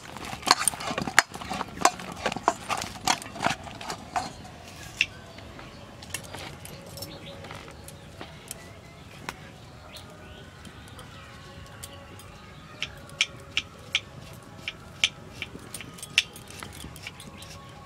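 Clinks from a stainless steel bowl and plate being handled, then a quieter spell, then a run of light sharp clicks, two or three a second, as dough is torn into balls by hand.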